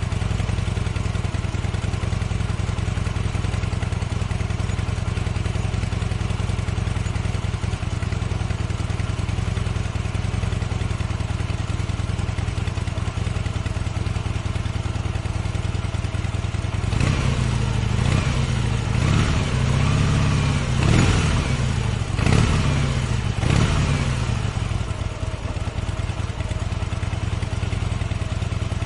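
Harley-Davidson 2016 Street Bob V-twin engine idling steadily, then revved several times in quick blips about two-thirds of the way through, each rising and falling back, before settling back to idle.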